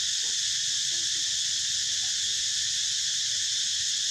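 Steady, high-pitched drone of a forest insect chorus, with a few faint, short low sounds under it.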